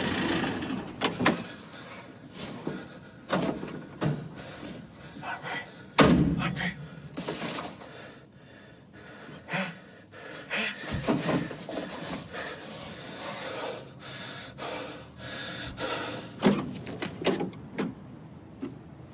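A vehicle engine fades out at the start. Then come a series of knocks and clunks of doors and metal, with a loud door slam about six seconds in. Near the end, more clunks come as the van's rear doors are opened.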